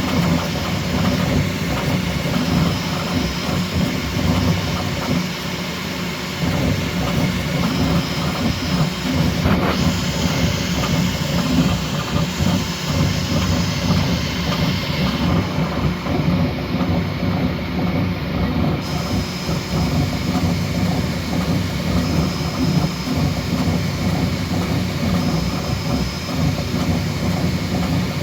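Bambu Lab X1C 3D printer printing at high speed: its motors whir and rattle busily as the print head darts back and forth, over a steady fan hiss. The high hiss drops away for a few seconds about halfway through.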